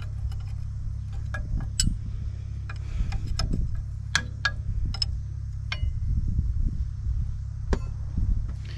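Wrenches clinking and tapping against the steel bolt and nut of a backhoe loader valve, in irregular sharp clicks, over a steady low hum.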